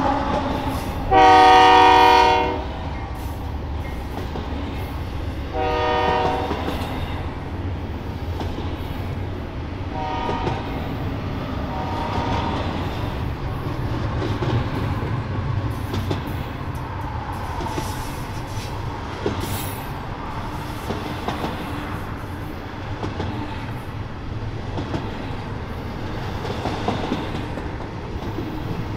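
Diesel freight locomotive horn sounding four times: a loud long blast about a second in, a quieter one a few seconds later, then two short, fainter ones. Between and after them, the steady rumble and clickety-clack of the freight train's wheels rolling along the rails.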